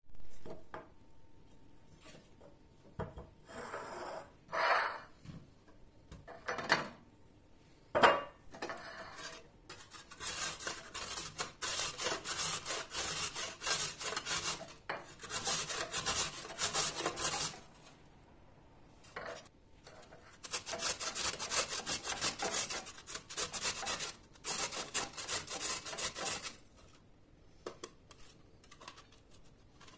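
A peeled carrot rubbed rapidly up and down a stainless-steel box grater, a dense rasping in two long runs with a short pause between. Before the grating, a few separate knocks and clinks of china and the grater being handled.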